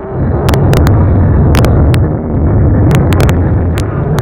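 Loud rumble of a motorcycle on the move, with heavy wind buffeting on the microphone and scattered sharp crackling clicks.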